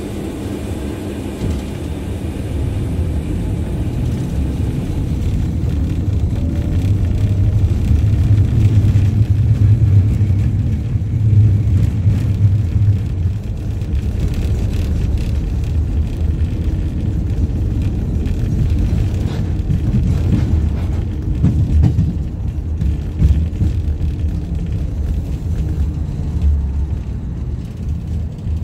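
Inside an LVS-86K articulated tram moving along the track: the steady low rumble of its wheels and running gear on the rails. The rumble grows louder over the first ten seconds as the tram pulls away from a stop and gathers speed, then eases slightly.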